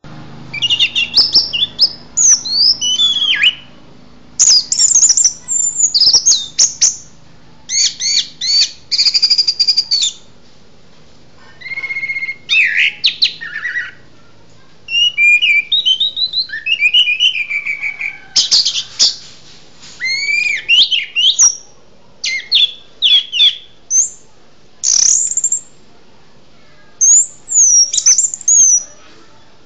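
Caged songbird singing: loud phrases of rapid, varied whistles and trills, one to two seconds each, with short pauses between them.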